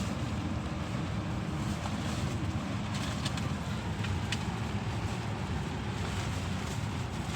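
Rain on and around a car, with the car's steady low rumble underneath and a few brief ticks in the middle.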